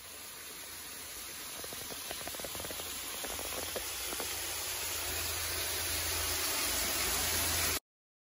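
Steady rushing hiss of water falling from a small garden waterfall, growing gradually louder, with a few faint ticks in the middle; it cuts off suddenly just before the end.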